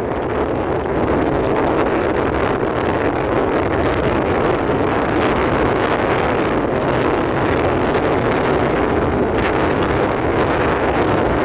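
Steady rumble of a moving train heard from on board, mixed with wind buffeting the microphone.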